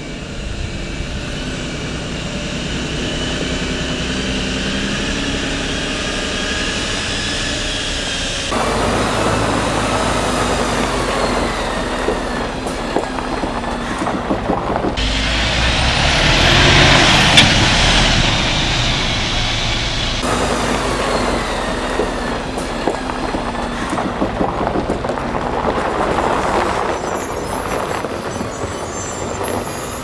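Diesel engine of a Mercedes-Benz Arocs tipper truck working under load as the truck drives over gravel and uneven off-road ground, heard across several shots that cut abruptly. It is loudest about halfway through.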